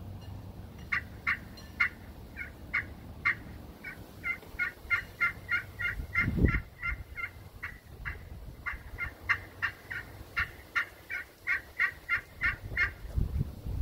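Zebrawood turkey friction call with a glass/aluminum striking surface, played with a striker to imitate a wild turkey: a string of short, high notes, a few spaced ones at first, then quicker runs of about three to four a second. A low rumble of wind on the microphone comes about six seconds in and again near the end.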